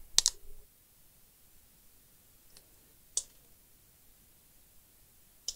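A few short, sharp clicks of metal tweezers handling a laptop's screen cable and connector, the clearest just after the start and about three seconds in; quiet between them.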